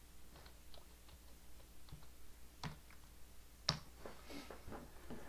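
Faint clicks of a computer keyboard, with two sharper clicks about a second apart near the middle.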